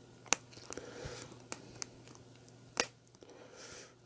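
Shrink-wrap foil being picked at and peeled off a plastic CD case: scattered sharp clicks of fingers on the case, with faint crinkling of the film and a short rustle near the end.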